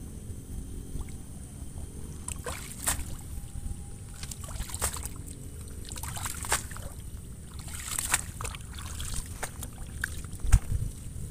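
Water sloshing and dripping with several sharp splashes as a wading person lifts a clump of water hyacinth, roots and all, out of the water, over a steady low rumble.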